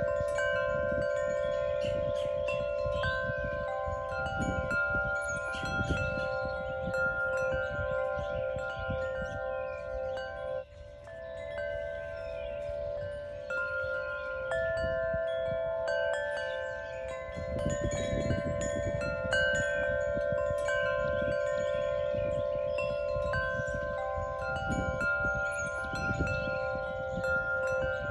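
Wind chimes ringing: several overlapping, long-sustained tones, with new notes sounding every second or so, over a low rumble.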